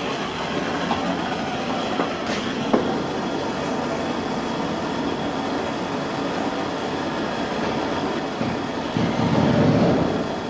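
Handheld gas torch flame hissing steadily while a copper water supply joint is sweated with solder. A couple of light knocks come two to three seconds in, and the sound swells briefly near the end.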